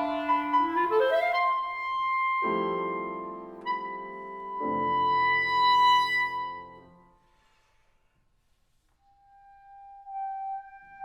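Clarinet and piano playing: the clarinet rises to a long held high note while the piano strikes two chords, about two and a half and four and a half seconds in. The sound fades to a short silence, then a soft clarinet note enters and holds near the end.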